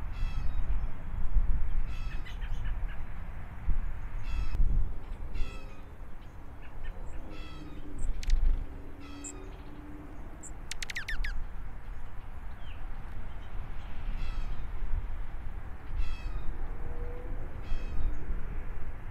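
Dark-eyed juncos calling: short high chips and twitters repeated every second or two, over a low rumble.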